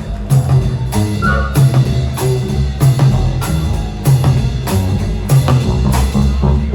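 Live rock band playing an instrumental passage: a steady drum-kit beat, a hit about every half second or so, over a repeating bass line.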